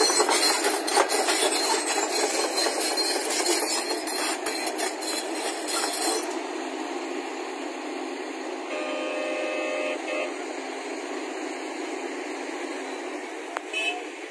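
JCB tracked excavator driving off on its steel tracks, its diesel engine working and the tracks clattering, the sound fading steadily as it moves away.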